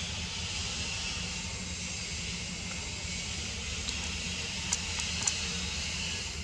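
Steady outdoor background hiss over a low rumble, with a few faint sharp clicks shortly after the middle.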